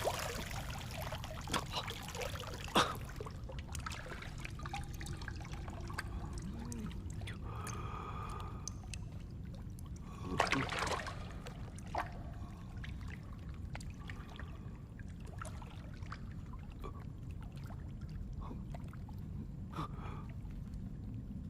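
Water trickling and dripping over a steady low rumble, with a louder splash about ten seconds in.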